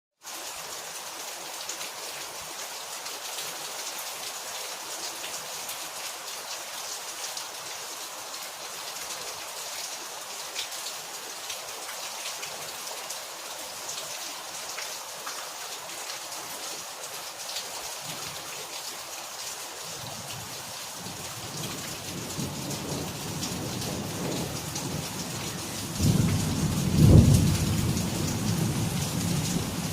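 Steady rain falling, with a low rumble of thunder building in from about two-thirds of the way through and peaking near the end.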